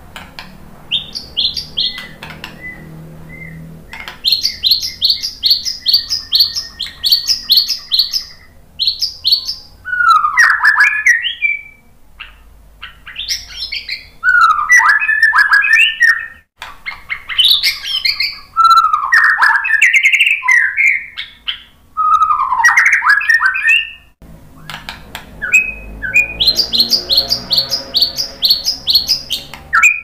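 White-rumped shama (murai batu) singing: fast runs of short, high chattering notes near the start and again near the end, and in between loud whistled phrases that slide up and down, one every couple of seconds.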